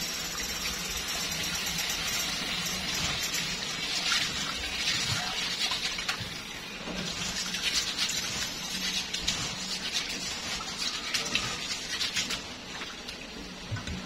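Tap water running into a steel bowl in a stainless sink while hands rub and swish mung beans in the water to wash them, with irregular splashes and sloshing.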